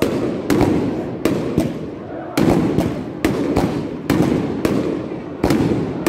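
Multi-shot fireworks battery firing aerial shots that burst overhead: a sharp bang about every half second, around a dozen in all, each trailing off before the next.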